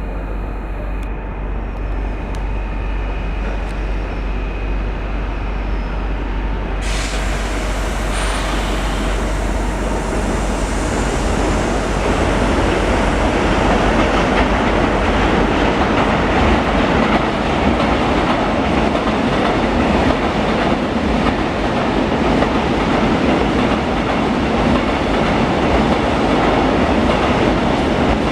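Freight train of tank wagons passing, a dense rolling rumble of wheels on rails. It grows louder over the first dozen seconds, with a sharp rise about seven seconds in, then holds steady as the wagons roll by.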